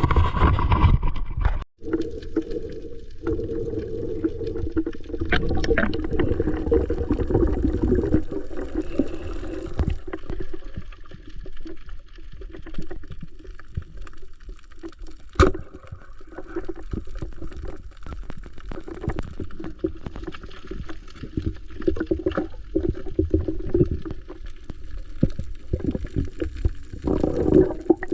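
Muffled underwater sound of a camera taken below the surface while snorkelling: water moving and gurgling, with scattered clicks and one sharp click about halfway through.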